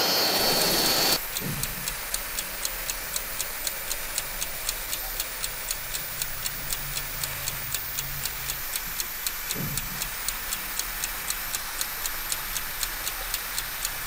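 Clock-ticking sound effect, about three ticks a second, over a low steady hiss. A brief louder rising whoosh comes in the first second.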